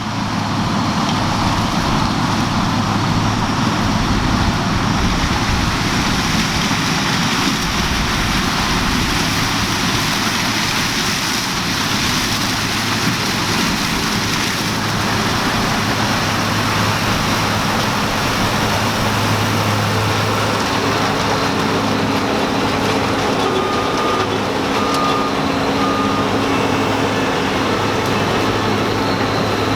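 Heavy farm harvest machinery running steadily under load during corn threshing: a diesel engine drone under a broad mechanical rush. Three short beeps at one pitch come about two-thirds of the way through.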